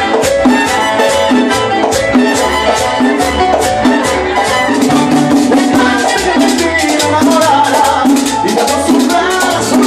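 Upbeat Latin American dance music with shaker and drum percussion over a steady beat and a moving bass line.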